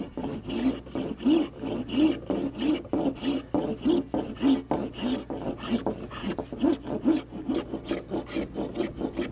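Block plane shaving the edge of a Douglas fir deck plank in short, quick strokes, about three a second, each a dry scraping swish as a curl of wood comes off. The plank's edge is being bevelled to open a seam for caulking.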